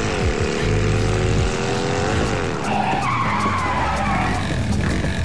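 A vehicle engine accelerating hard, its pitch climbing and then dropping back at a gear change about two seconds in. Tyres then skid and squeal for a second or two as the vehicle pulls up sharply.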